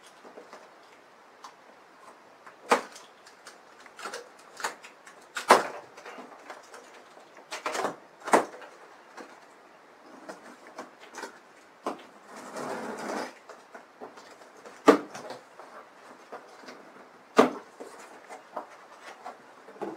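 A large cardboard box being opened by hand: scattered sharp knocks and clicks of cardboard flaps and packing, about five of them loud, with a rough scraping noise lasting about a second a little past the middle as the tape is cut.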